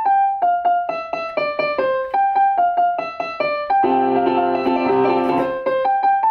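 Piano played by hand, a simple melody of single notes one after another. About four seconds in, many keys sound together in a clustered chord for a second and a half before the single notes resume.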